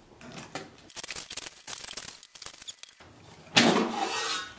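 Clear plastic wrap crinkling and rustling as it is peeled off an air fryer, with a loud rustling rip lasting just under a second about three and a half seconds in as the last of the film comes away.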